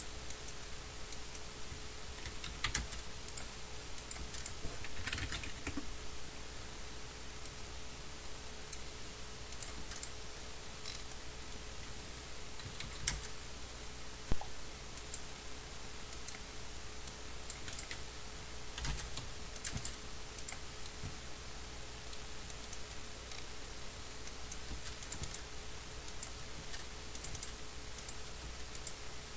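Computer keyboard typing and mouse clicks: scattered short taps at an uneven pace over a steady faint hum.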